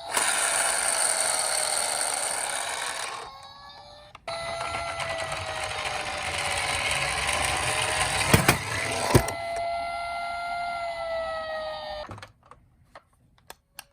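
Toy fire engine minicar's electronic siren sounding a steady, slightly wavering tone over a loud rushing noise from the toy running. It breaks off briefly about three seconds in, then resumes until it stops about twelve seconds in, with two sharp clicks shortly before it stops.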